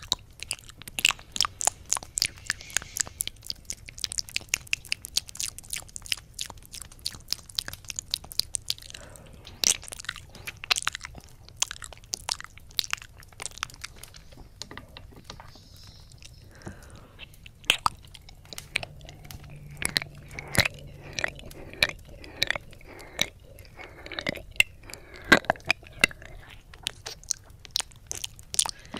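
Wet mouth sounds right at the silicone ear of a 3Dio binaural microphone: rapid lip smacks, licks and tongue clicks of ASMR ear eating, very dense for the first ten seconds and sparser after.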